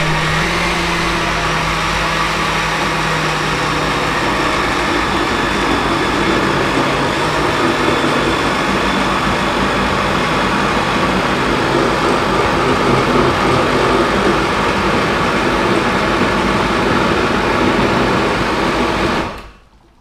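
Countertop blender running steadily as it purées cocoyam with water into a smooth paste. The motor switches off about a second before the end.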